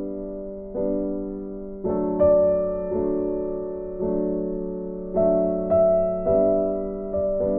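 Background piano music: slow, gentle chords struck about once a second, each left to fade.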